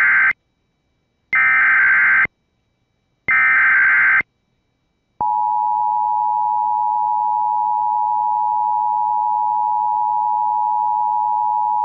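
Emergency Alert System activation for a tornado warning: the end of one burst and then two more bursts, each about a second long, of the SAME digital header data, followed from about five seconds in by the steady two-tone EAS attention signal.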